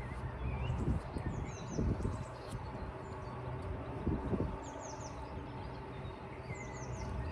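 Small birds chirping in short falling calls over a faint steady hum, with soft scrapes of a plastic spreader working body filler onto the narrowboat's steel side.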